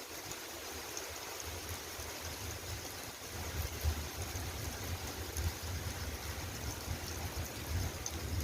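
Steady rain falling, an even hiss, with an irregular low rumble underneath.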